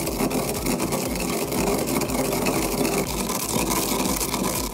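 Marble pestle grinding toasted glutinous rice in a marble mortar: a steady, rapid gritty scraping and crunching of grains against stone.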